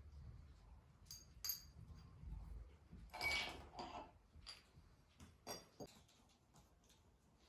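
Metal tools and parts clinking and clanking during hand disassembly of a scooter engine: a few scattered light clicks and one louder clank with a short ring about three seconds in.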